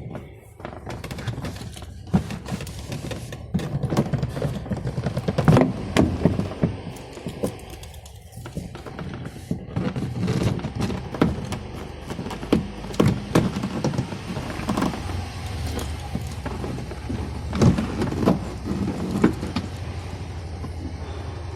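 Irregular clicks, knocks and thunks of hand work on a car door, over a steady low hum.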